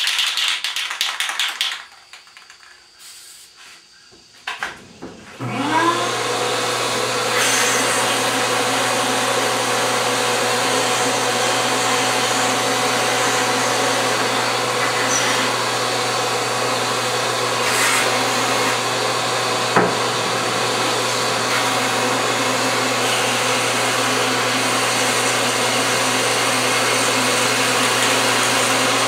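Rapid tapping for about two seconds, then a few faint clicks. About five seconds in, a wet/dry shop vacuum switches on, its motor spinning up and then running steadily as it draws paint up through the cylinder head's exhaust port.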